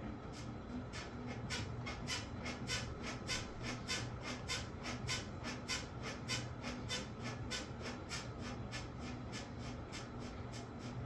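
Washing machine running with a low hum and a rapid, regular ticking of about three clicks a second. The ticking grows stronger and then fades toward the end.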